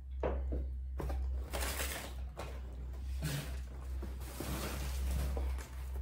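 Paper packing, crumpled tissue and honeycomb kraft paper, rustling and crinkling in a cardboard box as hands dig through it, in irregular spells with a few light knocks near the start.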